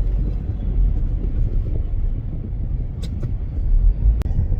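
Steady low road and engine rumble of a moving car heard from inside the cabin, with two short clicks about three and four seconds in.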